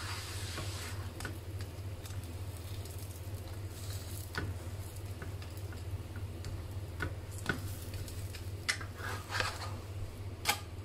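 Roti canai frying in oil in a nonstick pan: a soft sizzle over a steady low hum, with scattered light taps and scrapes of the utensil against the pan that come more often towards the end.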